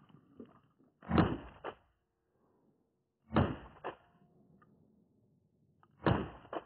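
Three loud shotgun shots about two and a half seconds apart, each fading quickly and followed by a fainter second crack.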